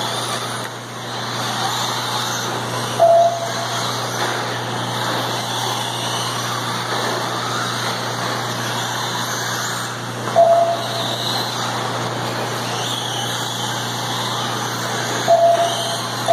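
Radio-controlled cars racing around a dirt track: a steady mechanical whir and hiss. A short beep sounds three times, about three, ten and fifteen seconds in.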